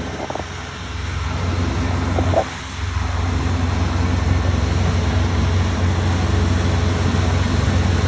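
Kubota ER470 combine harvester's diesel engine and threshing machinery running steadily as it cuts rice, with a short dip in level about two and a half seconds in.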